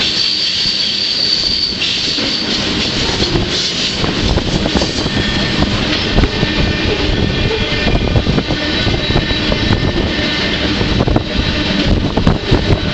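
Freight train running, heard from aboard a moving car: a steady rumble and rattle with frequent clanks and knocks, and high-pitched wheel squeal, strongest in the first two seconds.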